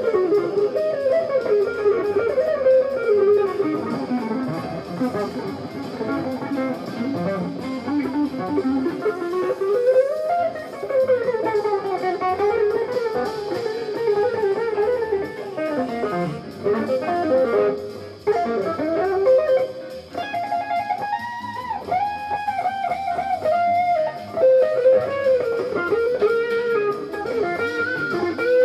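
Jazz fusion instrumental with a lead electric guitar playing a winding melody of gliding, bent notes over a full backing.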